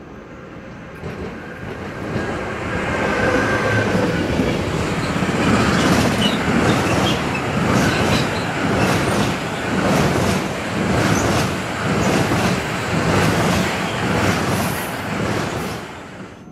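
Freight train of low-floor wagons carrying lorries rolling past close by, its wheels clattering in a steady rhythm over the points. The rumble builds over the first few seconds, stays loud with regular clacks about once a second, and fades near the end.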